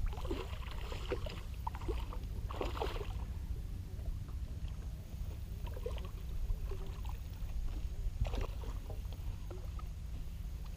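Water sloshing and lapping against a small fishing skiff's hull, with a few light splashes and knocks, over a steady low rumble.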